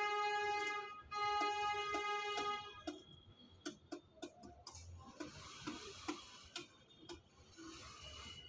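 Rock pigeon pecking rice from a metal bowl: a run of sharp, irregular ticks as the beak strikes the grain and bowl. Over the first few seconds two long, steady pitched tones of about a second and a half each sound over the pecking, and later a soft hiss comes twice.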